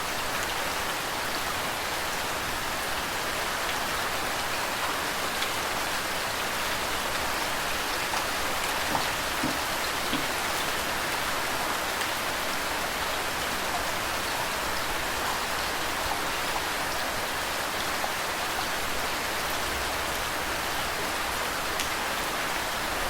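Steady rain falling, with scattered individual drops ticking and flowing water under it.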